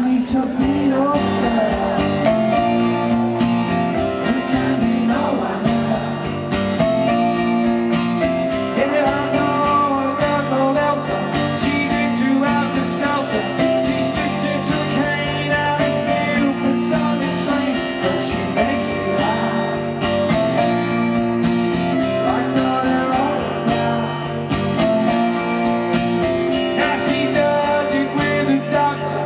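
Live rock band playing a song: guitars over a steady drum beat, with singing.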